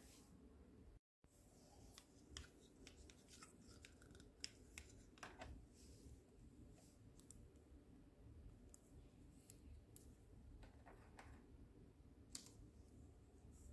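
Faint, scattered clicks and taps of small hard plastic toy pieces being handled and hooked onto a plastic toy stand, over near-silent room tone. The sound drops out completely for a moment about a second in.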